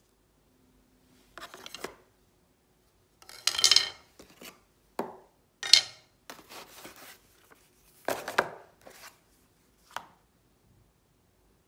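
Unboxing handling noises: wooden crepe utensils (a spatula and a T-shaped batter spreader) set down on a cast-iron crepe pan, with packaging rustled, in about eight short bursts of knocking and rustling.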